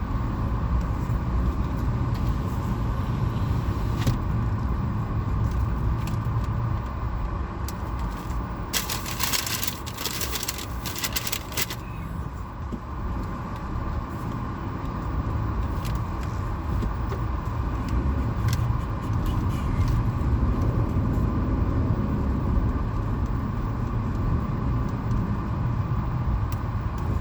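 Car cabin noise while driving: a steady low rumble of engine and road, with a brief rattle about nine seconds in.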